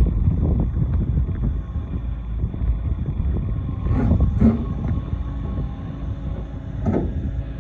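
Kobelco SK85MSR 8.5-tonne tracked excavator running and moving on its tracks, its diesel engine giving a steady low rumble. A few sharp knocks come through about four seconds in and again near the end.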